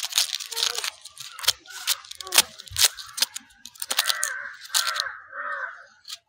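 Knife blade scraping and peeling the dry papery skin off a red onion: a run of crackles, scrapes and small tearing sounds. Calls in the background from about four seconds in.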